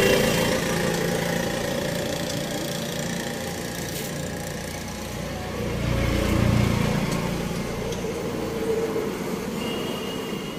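Motor vehicle engine running as a low rumble that swells about six seconds in and then fades back.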